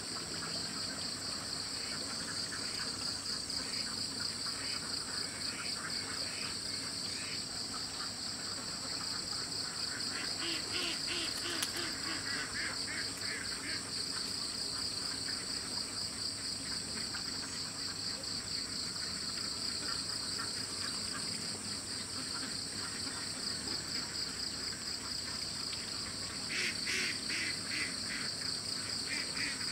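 Steady, high-pitched chorus of insects. A second, rapidly pulsing call rises over it twice: about a third of the way in, and again near the end.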